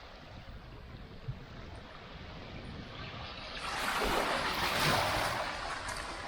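A small wave breaking and washing up the beach, swelling about halfway through and easing off near the end, over steady surf and wind buffeting the microphone.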